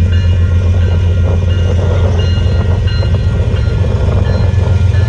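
Union Pacific gravel train rolling past close by: a loud, steady low rumble of the cars on the rails, with short, faint high-pitched squeals coming and going.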